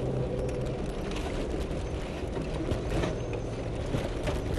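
Four-wheel-drive vehicle driving over a rough dirt trail: a steady engine drone with the body rattling and knocking over the bumps.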